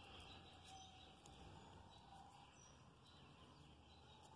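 Near silence: faint outdoor background noise with a few faint, short high chirps.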